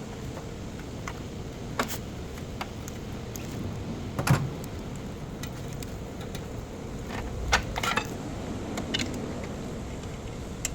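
A few irregular metallic clinks and knocks, typical of tools and parts being handled, over a steady background noise.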